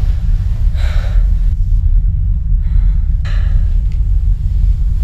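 A loud, deep, continuous rumble, with two short breathy sounds over it, about a second in and again past the middle.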